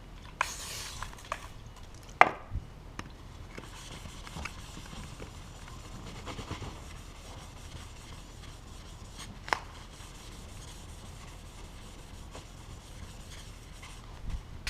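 A cloth wiping over a plastic car bumper with freshly sanded filler, a soft steady rubbing with a few light knocks, the loudest about two seconds in and about nine and a half seconds in.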